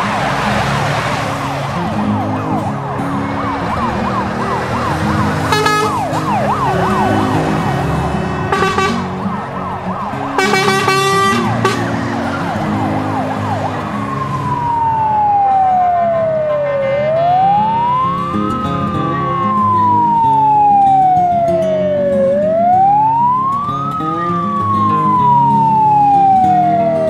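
A siren sound with background music beneath it. It starts as a fast, rapidly warbling yelp with a few short beep-like bursts. About halfway through it changes to a slow wail that rises and falls about every five and a half seconds.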